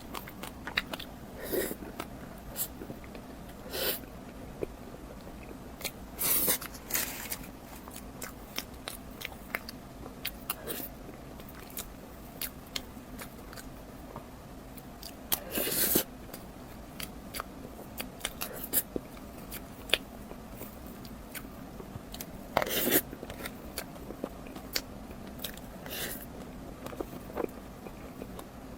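Close-miked eating sounds: bites and chewing with scattered wet mouth clicks, and a few louder crunchy bursts.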